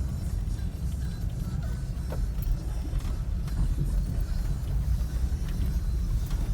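Four-wheeler (ATV) engine running under way, a steady low rumble.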